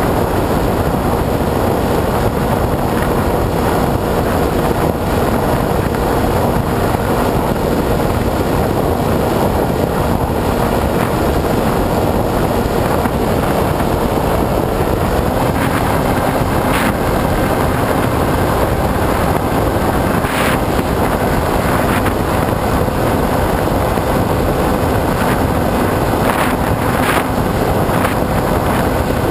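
Wind rushing over the microphone of a camera on the nose of an AXN Floater Jet RC foam plane in flight, over the steady hum of its electric motor and propeller, which steps up slightly in pitch about halfway through. A few faint ticks come in the second half.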